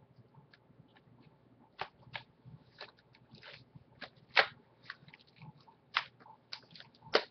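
Plastic shrink-wrap on a sealed Blu-ray case being picked at and torn open: irregular crinkling and sharp crackles, the loudest about four seconds in and again near the end.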